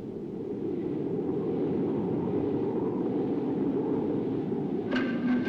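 Steady low rush of wind sweeping over open grassland. Near the end a sharp percussive strike starts the film score, with sustained ringing tones.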